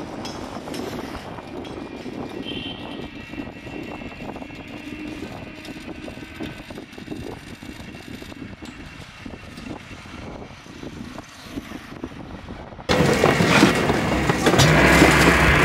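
Steady road and wind noise from riding on an open van rickshaw along a paved road. About thirteen seconds in, it cuts abruptly to a louder, busier sound.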